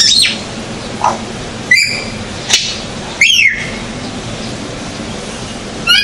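African grey parrots calling: a string of short whistled calls, some falling in pitch, five or so in the first three and a half seconds, then a pause and another call near the end.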